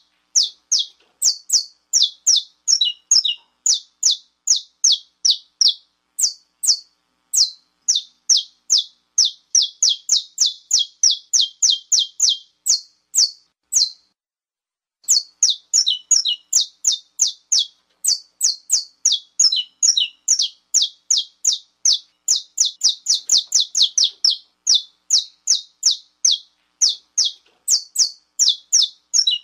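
Saffron finch (canário-da-terra) giving its 'estalo' call: a long series of sharp, high, downward-slurred chip notes, about three to four a second, with a pause of about a second midway. This is the excited call that bird keepers play to rouse and fire up males.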